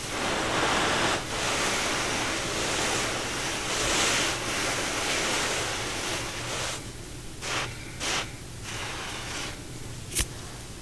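Fragile cornstarch chunks being crushed and rubbed: a dense crumbling hiss for the first six seconds or so, then a few separate soft crunches and one sharp snap near the end.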